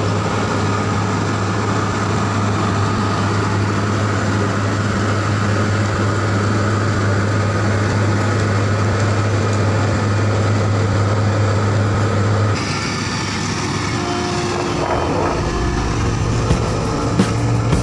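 Diesel engines of road-paving machinery, an asphalt paver fed by a tipping dump truck, running with a steady hum. About twelve seconds in the sound switches abruptly to a lower rumble from a road roller compacting the fresh asphalt, with a few sharp clicks near the end.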